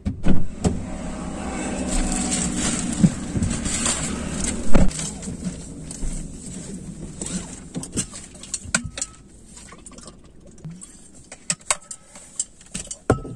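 Handling noises of someone getting into a new Hyundai i20 with plastic-covered seats: rustling and knocks, then one loud thump a little under five seconds in as the driver's door shuts. After that, quieter scattered clicks of the seat belt being pulled and fastened.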